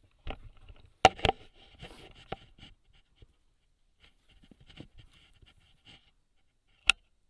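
Handling noise on a rifle-mounted thermal scope as it is swung about: two sharp clicks about a second in, scattered rustling and light clicks, and one more sharp click near the end.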